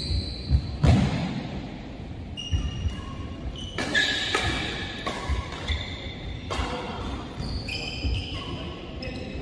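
Badminton doubles play on an indoor court: sharp racket strikes on the shuttlecock and footfalls, with short high squeaks of shoes on the court mat scattered throughout.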